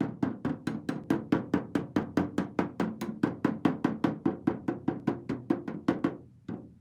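Rapid, even hammer taps on the sheet metal of a car hood, about five a second, tapping out a dent. The taps grow fainter near the end and stop.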